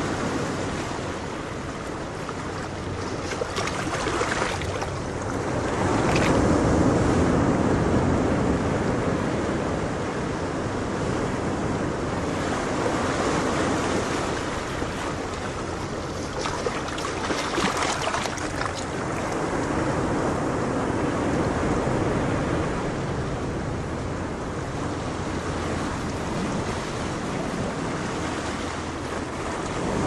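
Ocean waves breaking on a shore: a continuous rush of surf that swells and eases every several seconds.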